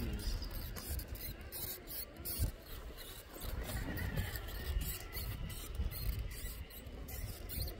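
Radio-controlled scale crawler truck climbing over rocks: a faint high electric motor and gear whine, with many small clicks and scrapes from its tyres and chassis on the stone.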